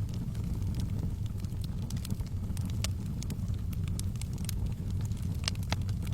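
Wood fire burning in a fireplace: a steady low rumble of flames with scattered sharp crackles and pops, one louder pop near the end.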